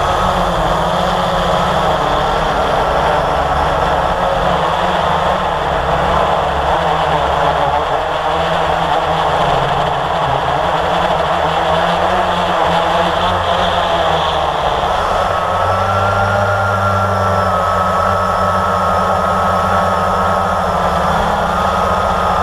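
Blade 350 QX quadcopter's electric motors and propellers whining steadily, heard up close from the aircraft itself, the pitch drifting as the throttle changes and stepping up a little after the middle. A low rumble runs underneath.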